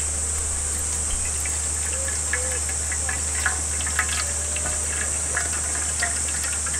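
Thin stream of water running from a container's spout into an aluminium mess tin, with many small splashing ticks on the metal and water. Under it, a steady high-pitched drone of insects.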